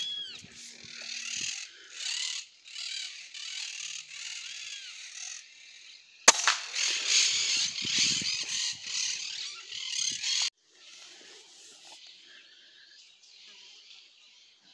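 Outdoor birds chirping over a steady high hiss of countryside ambience, with one sharp click about six seconds in. The ambience is louder for a few seconds after the click, then drops abruptly.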